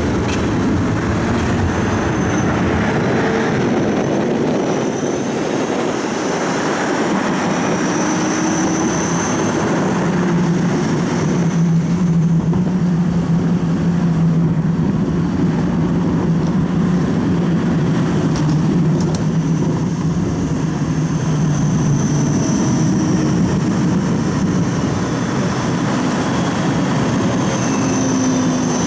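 Siemens Combino low-floor tram running, heard from inside: a continuous rumble of wheels on the rails, with the electric drive whining in tones that rise, hold and fall as the tram speeds up and slows.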